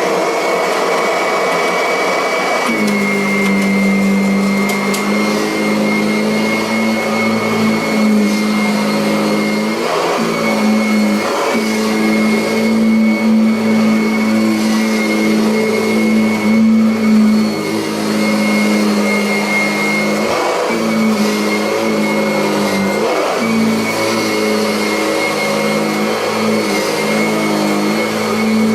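Kirby Avalir 100 upright vacuum cleaner running on carpet: a steady motor hum with a high whine, its tone wavering slightly as the machine is worked over the floor.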